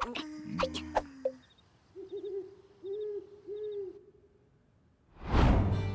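Cartoon owl sound effect hooting three times, each hoot a short rise and fall in pitch. A loud rushing sweep comes in near the end.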